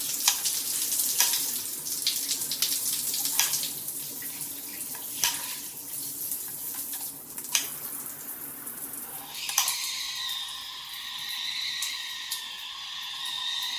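Shower water spraying and splashing steadily, with many small droplet clicks. About ten seconds in the sound changes to a thinner, higher hiss.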